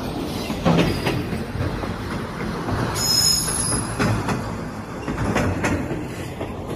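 Passenger train running along the track, heard from an open coach doorway: a steady rumble with paired clicks as the wheels cross rail joints, and a brief high wheel squeal about three seconds in.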